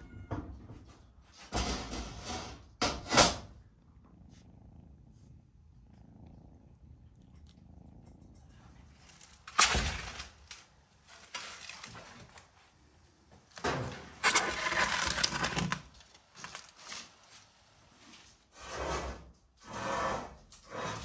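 Metal baking trays slid out of a brick wood-fired oven and set down on a wooden table: several separate bursts of scraping and clatter, the longest lasting about two seconds.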